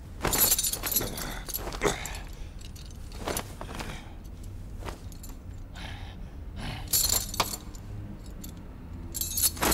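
Metal jangling and rattling in several bursts: about half a second in, around seven seconds, and again near the end.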